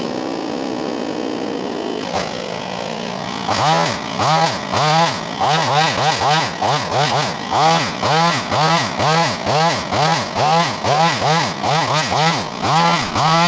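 Wild Badger multitool running its pole hedge-trimmer attachment. The engine holds a steady pitch for about three seconds, then swings up and down about twice a second while the trimmer cuts.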